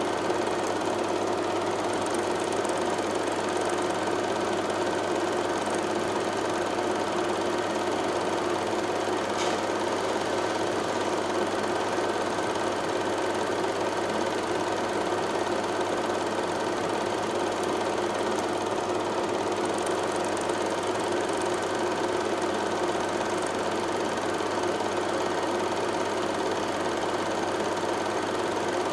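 Steady mechanical hum from a running motor, several fixed tones at an unchanging speed.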